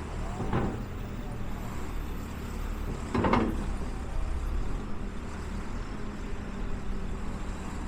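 Large engine running steadily at a low drone, with two brief noisy bursts about three seconds apart, the second louder.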